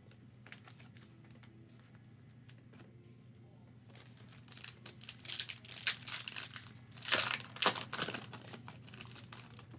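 A trading-card pack wrapper being torn open and crinkled, starting about four seconds in and loudest in the second half, with a few light clicks of card handling before it.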